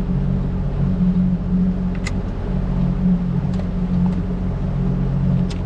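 Boat motor running at a steady speed, an even low drone, with a few light clicks about two seconds in and near the end.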